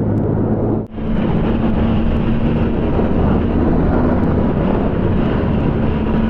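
Benelli TRK 502X's parallel-twin engine running at a steady speed on the road, with wind noise over it. The sound drops out for an instant about a second in.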